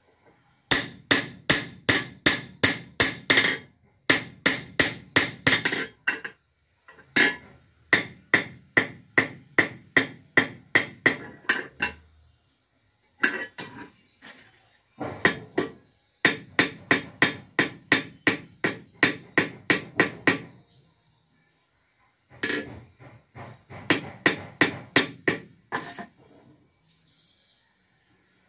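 Hand hammer striking a metal wire laid on a length of steel railway rail used as an anvil, in quick runs of about four ringing blows a second, broken by short pauses.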